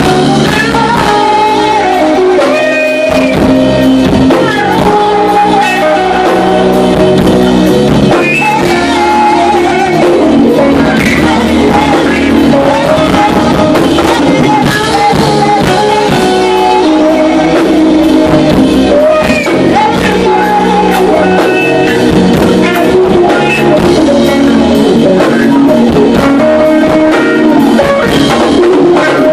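Live band performing: lead and backing vocals over electric guitar, bass and drum kit, loud and without a break.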